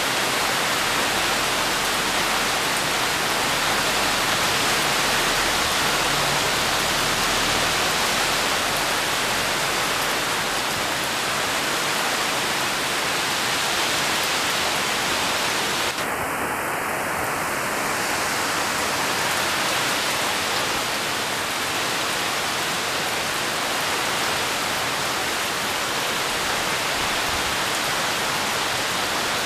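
Heavy rain falling steadily on leaves and the garden, an even hiss throughout.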